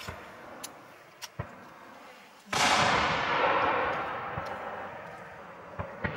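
Fireworks display: a few sharp pops in the first second and a half, then, about two and a half seconds in, one loud aerial shell burst whose sound fades slowly over several seconds, and a couple more pops near the end.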